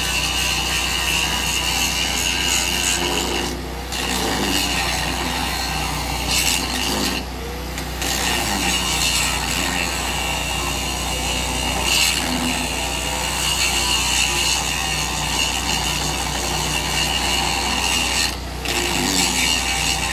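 Electric arc welding on a steel tank: a continuous crackling hiss from the arc, stopping briefly three times, over a steady low hum.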